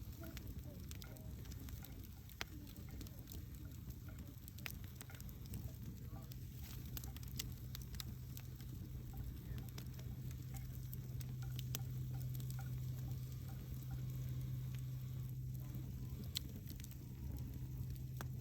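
Wood campfire burning, crackling with irregular small snaps and pops over a soft hiss, with a steady low hum underneath that grows louder in the second half.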